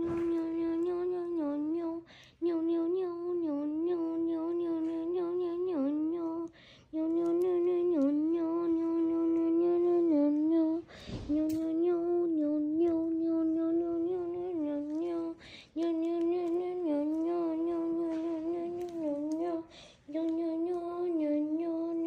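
A person humming one steady mid-pitched note with small wavers, breaking off briefly every four or five seconds and starting again on the same note. About eleven seconds in there is a short noisy burst in one of the breaks.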